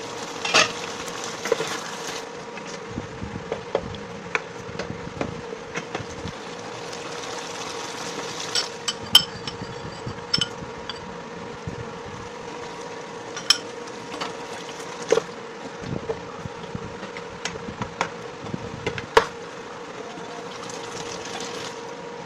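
Steady electric hum with a constant tone from a plug-in cooktop, over which a metal spoon clinks and knocks against a stainless steel pot every few seconds as the sauce is stirred.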